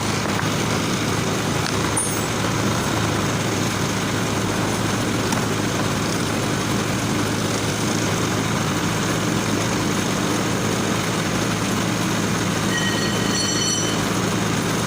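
An engine running steadily at idle, an even low drone that does not change.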